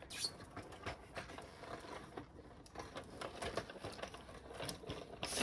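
Wood fire crackling in a grill: irregular light pops and clicks, with a sharper burst of crackles near the end.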